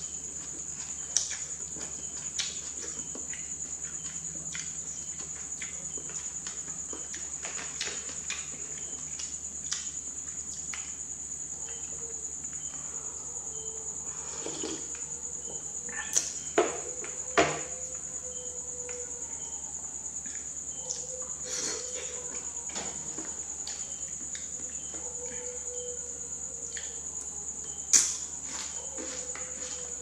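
A continuous high-pitched cricket trill runs under quiet eating: soft chewing of instant noodles and bok choy, with a few sharp clicks of plastic chopsticks against the plastic bowl, the loudest a cluster about halfway through and one near the end.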